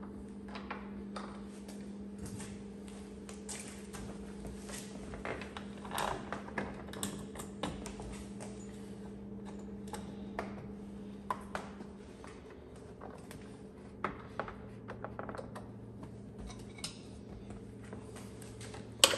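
Scattered light clicks and taps of bolts and hand tools being worked on a door, at uneven intervals, over a steady low hum.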